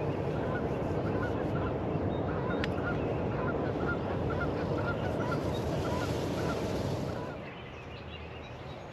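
A series of turkey yelps, short repeated notes about two a second, over a steady rushing noise that drops away about seven seconds in.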